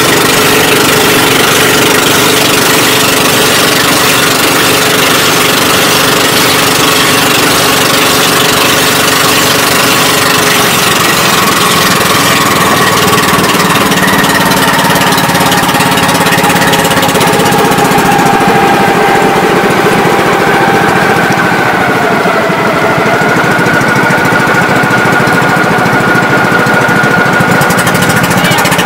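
Outrigger boat's (bangka's) engine running loud and steady while underway, with a hiss across the top; the hiss thins out about two-thirds through and the engine's pitch shifts slightly.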